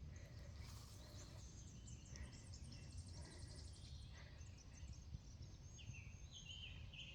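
Faint outdoor quiet with distant birds singing: rapid trilled high notes through the first few seconds and a run of chirps near the end, over a low rumble.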